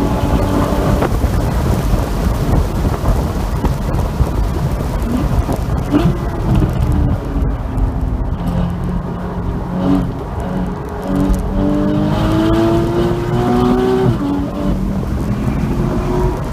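Porsche Boxster 981 GTS flat-six engine driven hard on track, heard from inside the car. Its pitch climbs under acceleration and drops at gear changes, most sharply about a second in and about fourteen seconds in, over a heavy rumble of wind and road noise.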